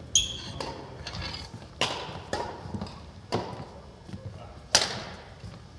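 Badminton rally: rackets striking a shuttlecock, four sharp hits about a second and a half apart with softer knocks between, each echoing in a gym hall.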